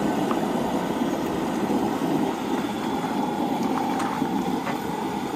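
Propane camp stove burner running with a steady roar under a cast iron Dutch oven of simmering liquid, with a few faint clicks.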